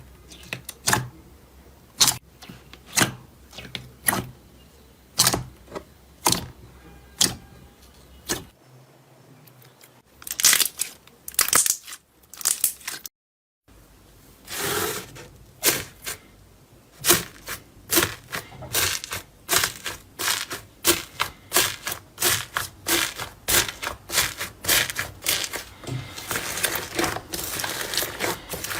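Slime being pressed and squeezed by hand, giving a string of sharp sticky pops and crackles, spaced about a second apart at first and coming faster and denser after a short break about halfway.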